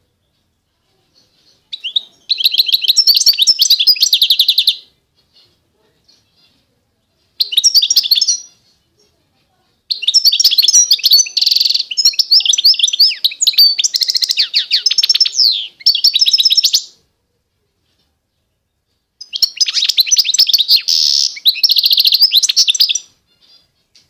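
A caged finch singing: four phrases of rapid, high twittering trills separated by short pauses, the longest running about seven seconds.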